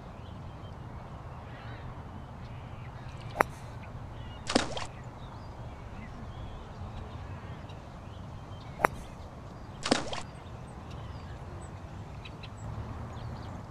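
Two golf shots, each a sharp club-on-ball click followed about a second later by a short splash as the ball lands in a water hazard, over a steady outdoor background hiss.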